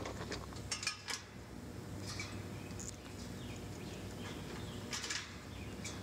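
A few light metallic clinks about a second in, and again about five seconds in. Birds chirp faintly in between.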